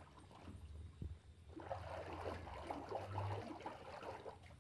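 Faint sloshing and swishing of water as a toy is swirled by hand in a bowl of coloured water, growing from about a second and a half in.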